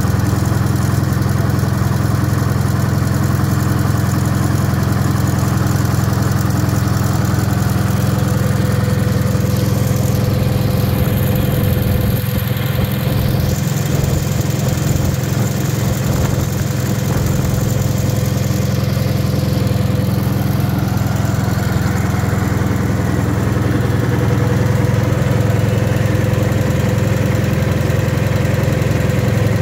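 Wisconsin air-cooled engine running steadily on a bench, an even low hum of engine tones that eases slightly for a few seconds mid-way.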